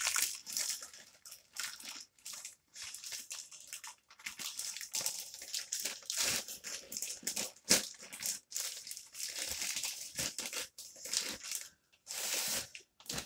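Plastic poly mailer bag crinkling and rustling as it is opened and the book inside is pulled out, in irregular crackles with a few louder sharp ones.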